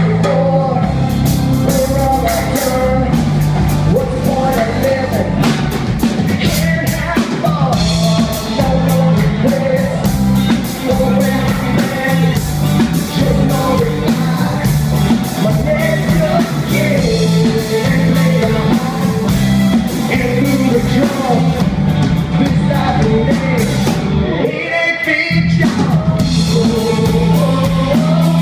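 Live rock band playing: a male lead singer over electric bass, guitar and drum kit. About three seconds before the end, the bass and drums drop out for roughly a second.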